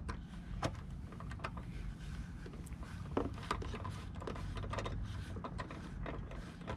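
Hand socket ratchet clicking in short, irregular runs as a headlight-assembly mounting screw is turned in, over a steady low rumble.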